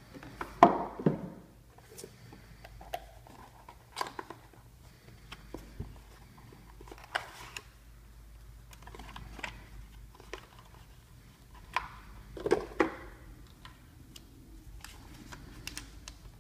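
Cardboard packaging being handled: scattered knocks, taps and scrapes as a box insert is lifted out and printed cards are pulled from it. The loudest knocks come about a second in and again about three-quarters of the way through.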